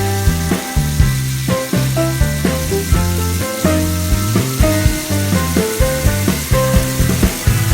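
Background instrumental music with short, struck notes in a steady rhythm and a bass line, over the steady hissing sizzle of fish frying in olive oil.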